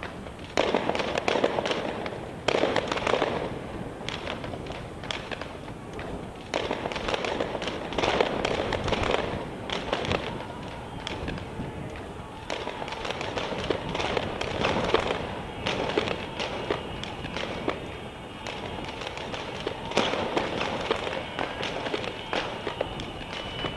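Repeated gunshots from riot police weapons, fired at irregular intervals with some in quick succession, each echoing.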